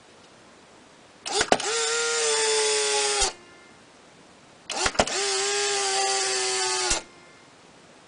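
Polaroid SX-70 cycling twice: each time a shutter click is followed by the camera's motor whirring steadily for about two seconds, then stopping with a click. It is running its film-ejection cycle on a spent cartridge, so no print comes out.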